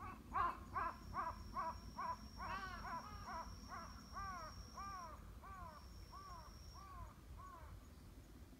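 A crow cawing in a long quick series, about three caws a second, each caw short and arching in pitch. A second crow overlaps briefly in the middle, and the calls fade out near the end.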